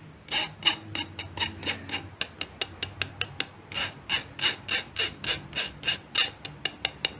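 A metal spoon scraping custard powder through a fine stainless-steel mesh sieve. It makes a quick, even run of short scraping strokes, about five or six a second.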